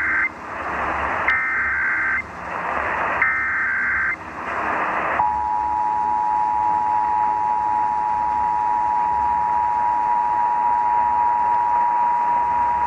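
Emergency Alert System alert received over a radio. First come the SAME header data bursts, three short bursts about two seconds apart with hiss between them, the first already under way. Then, about five seconds in, the steady two-tone attention signal begins, opening a required monthly test.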